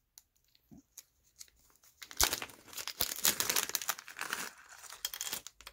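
Clear plastic bag of small crimp connectors crinkling as it is handled. It starts about two seconds in, after a few light clicks, and stops near the end.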